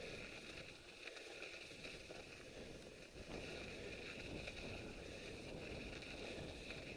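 Faint, steady rolling noise of mountain bike tyres over a snow-covered path, with a thin steady hiss.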